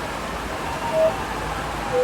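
The giant cuckoo clock's cuckoo calling its two-note "cuckoo" as it strikes the hour: a higher note about a second in and a lower note near the end, over a steady hiss.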